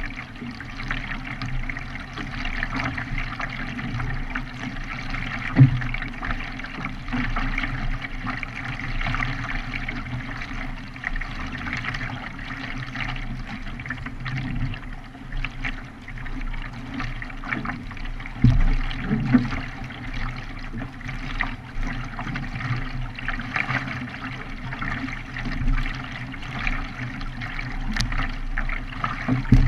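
Water splashing and trickling as a K1 racing kayak is paddled, paddle blades dipping and water running along the hull, with a couple of low thumps about five and eighteen seconds in.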